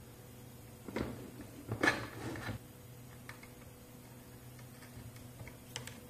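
Small handling sounds as a jumper wire is fitted to the screw terminals of a SICK UE43-3MF safety relay with a small screwdriver. There is a click about a second in, then a short rustle of wire and tool near two seconds, and a few faint ticks later.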